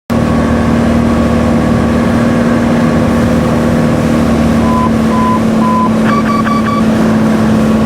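Steady drone of a Piper Arrow's single piston engine and propeller in cruise on approach, a continuous hum with a higher whine over it. Three short beeps sound about five seconds in, followed by a quicker run of four sharper beeps.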